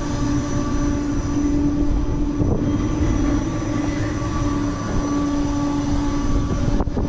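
Steady mechanical drone with a held hum over a low rumble, from an amusement ride's machinery running.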